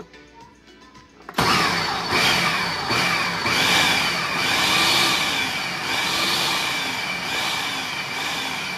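Ninja Professional 1500-watt blender motor starts suddenly about a second and a half in and runs at speed, puréeing stock, juices and cooked vegetables. It gives a steady high whine with a rising-and-falling swell about once a second as the liquid churns.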